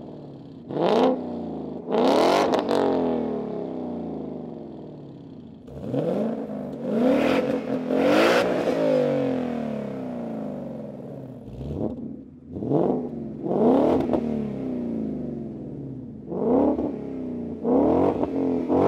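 Ford Mustang GT's 5.0-litre V8 at a standstill, revved repeatedly in short blips, the pitch falling back to idle after each, heard from behind through the exhaust. It plays first through the stock active exhaust in normal mode, then through a Borla resonator muffler in quiet mode and then sport mode.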